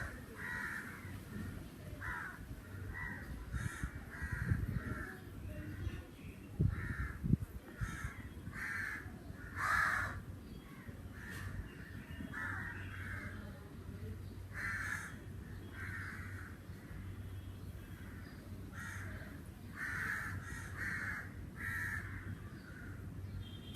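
Crows cawing over and over, short caws coming in quick runs throughout.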